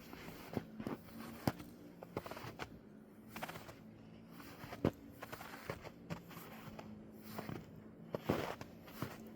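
Footsteps crunching in snow while walking, irregular steps about one a second, with a longer, louder crunch near the end.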